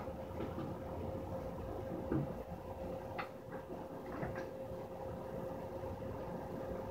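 A rabbit eating lettuce: a few faint, crisp crunches as it bites, over a steady hum with a constant tone, and a soft thump about two seconds in.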